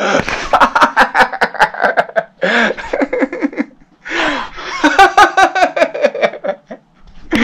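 Loud, hearty laughter in three long bouts, with short breaks about two and four seconds in.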